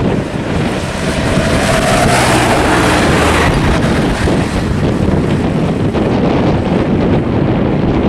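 Highway traffic: small diesel trucks and motorbikes passing, heavily buffeted by wind on the microphone.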